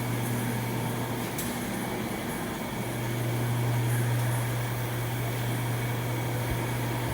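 Steady low machine hum that eases off for a couple of seconds early on and then comes back.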